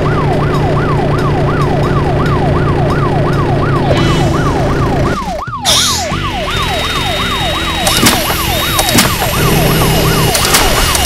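Police siren sound effect wailing in fast, repeated falling sweeps, about three a second, over a steady low motor hum. About halfway through it breaks off for an instant, then a high steady whine and sharp clicks join in as the circular saw cuts into the tyre.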